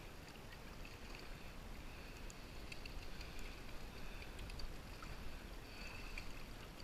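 Faint low wind rumble on the microphone and light water sounds around a float tube on a lake, with a few faint clicks.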